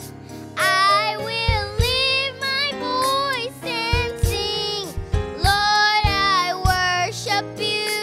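A young girl singing sustained, held notes into a microphone over a backing music track with low drum hits.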